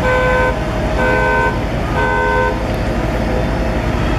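A vehicle horn sounds three short toots about a second apart, each about half a second long, over a steady low engine and traffic rumble.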